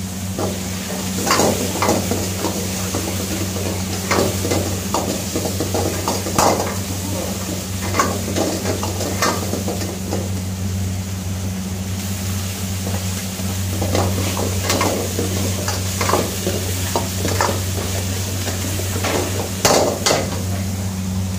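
Stir-frying in a steel wok: a metal spatula scrapes and knocks against the wok in irregular strokes while the food sizzles. A steady low hum runs underneath.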